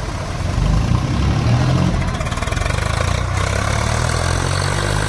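Tractor diesel engines running steadily, getting a little louder about a second in.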